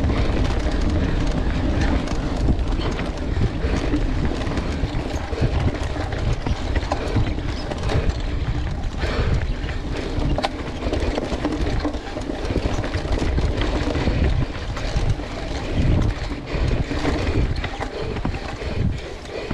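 Mountain bike being ridden fast down a dirt forest trail: wind buffeting the mounted camera's microphone over a steady rumble of tyres, with irregular knocks and clatter from the bike as it rides over bumps.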